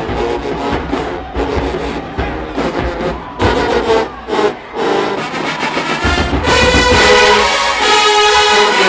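HBCU marching band playing: drum hits and short brass stabs, then about two-thirds in the full brass section comes in with a loud, sustained chord.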